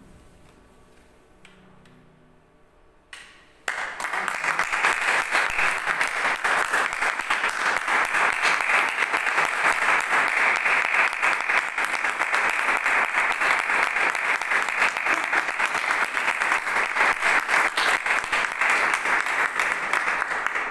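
The last grand piano chord dies away, then audience applause breaks out suddenly about four seconds in and carries on steadily.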